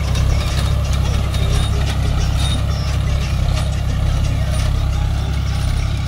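40 hp John Deere tractor's diesel engine running steadily under load while pulling a chisel plough, with a rattle of clicks and knocks from the plough tearing through dry, cloddy soil.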